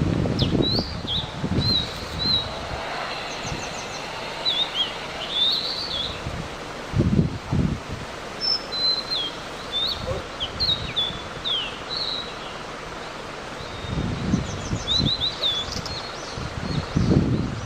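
Blue-and-white flycatcher calling: short high chirps, whistles and quick trills, scattered throughout. Brief low rumbles break in at the start, twice around seven seconds in, and again in the last few seconds.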